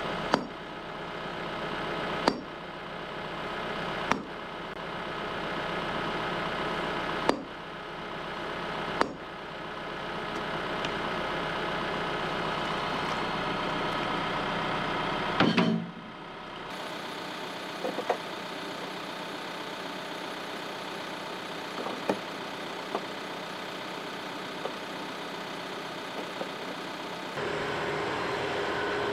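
TYM tractor's diesel engine idling steadily while a sledgehammer strikes a concrete block five times in the first ten seconds. A heavier clunk comes about fifteen seconds in, a few light knocks follow, and near the end the tractor's engine is louder as it drives.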